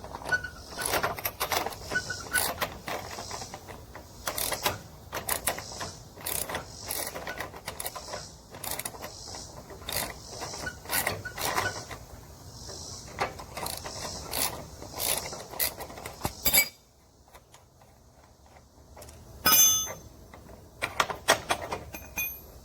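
Dense clicking and clanking of tools and metal parts being handled, ratchet-like. It cuts off abruptly about two-thirds of the way through, then a sharp loud click and a few more clicks follow.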